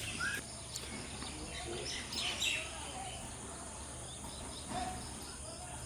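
Outdoor ambience: a few short bird chirps over a steady high-pitched insect drone and a low steady hum.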